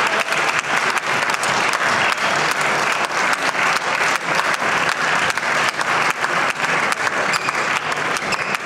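Spectators in the stands applauding steadily: dense, continuous clapping from a large crowd.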